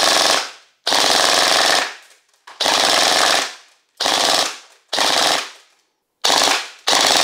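Electric airsoft gun firing on full auto in a string of about seven short bursts, each half a second to a second long, with brief pauses between them.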